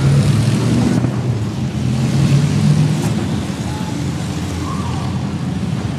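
Road traffic: a vehicle's engine hum, strongest for the first three and a half seconds, then easing as it passes.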